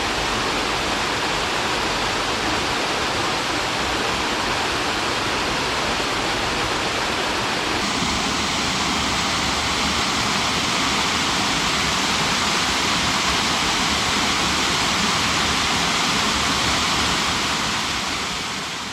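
Zaskalnik Waterfall: water pouring and rushing in a steady, loud roar. The tone of the rush changes about eight seconds in, and the sound fades out at the very end.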